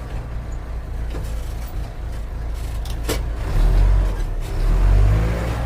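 A heavy machine's engine runs steadily with a deep hum, and it swells louder twice in the second half as it takes on load.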